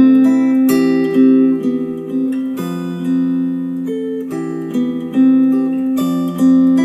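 Music: strummed acoustic guitar chords with no vocals, played back through hi-fi bookshelf speakers.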